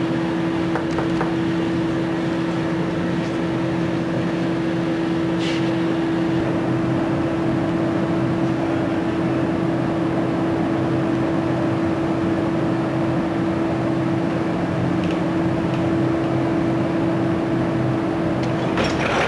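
Steady machinery drone on board a ship, with a constant low hum that holds the same pitch throughout. A louder rush of noise starts right at the end.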